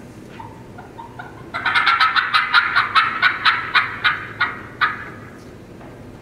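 Turkey call sounding a hen's fly-down cackle: a few soft tree yelps, then about a second and a half in a loud, fast run of cackling notes, about four a second, that slows and fades out near the end.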